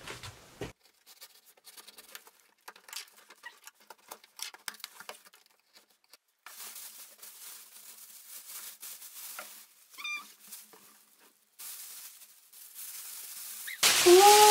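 A cardboard parcel being opened: packing tape slit with a blade in small scratches and clicks, then the box flaps and contents handled, with a short squeak about ten seconds in. Near the end, a loud rustling of a plastic bag as the contents are pulled out.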